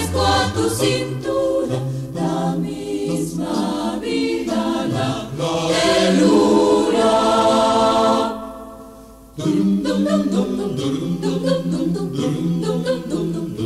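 Polyphonic choir singing a cappella in several parts, from a 1986 cassette recording. Past the middle a held chord dies away, and about a second later the voices come back in together.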